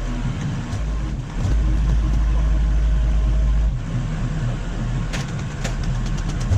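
A work machine's engine running steadily with a heavy low rumble, growing louder for a couple of seconds in the middle, with a few light clicks about five seconds in.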